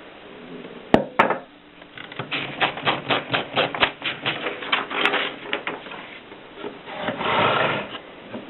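Erika S portable typewriter being typed on: two sharp key strikes, then a quick run of keystrokes at about five or six a second, followed by a longer rasping sound about seven seconds in.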